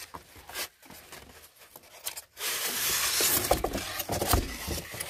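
Styrofoam packing block scraping and rubbing as it is slid out of a cardboard box, a rasping rub that starts about halfway through and lasts about two seconds, after softer handling noises.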